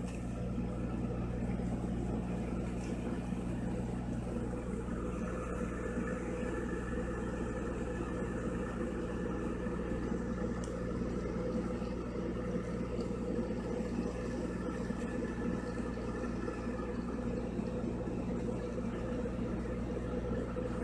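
An engine on a fishing boat running steadily: an even, low drone that does not change.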